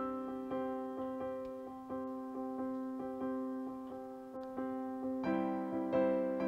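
Gentle background piano music: soft repeated chords and notes, each struck and fading away, in a slow steady rhythm.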